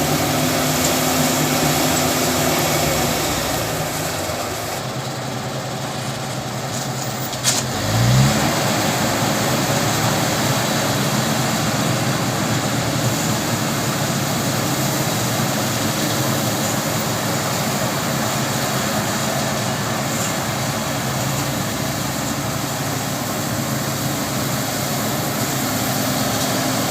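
Engine of a farm machine in a muddy field running steadily. About eight seconds in there is a sharp knock, followed by a short rev.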